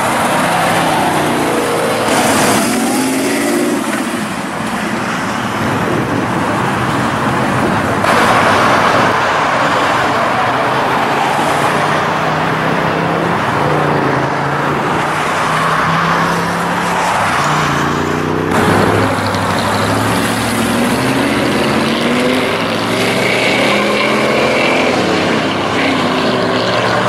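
1966 Chevrolet Chevelle SS's V8 engine and exhaust accelerating away, the engine note rising again and again as the car pulls off and drives down the road.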